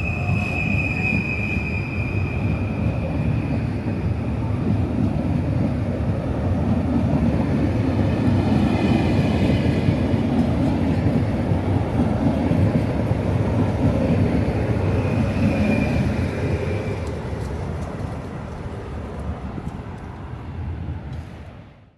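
Stadler FLIRT (PKP Intercity ED160) electric multiple unit moving past along the platform. A horn note sounds for the first few seconds, then the rumble of wheels and running gear builds, loudest in the middle with brief high-pitched wheel squeals, and fades as the train draws away.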